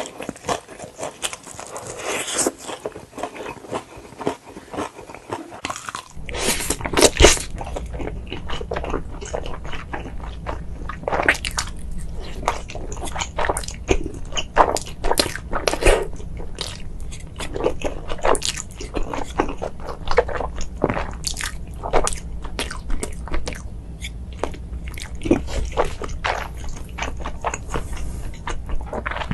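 Close-miked eating: crunchy food being bitten and chewed, with many sharp, irregular crunches. About six seconds in, a steady low hum starts underneath.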